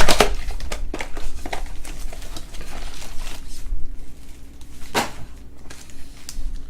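Hands opening trading card packs and handling the cards: rustling wrapper and card sounds with sharp clicks, the loudest right at the start and about five seconds in.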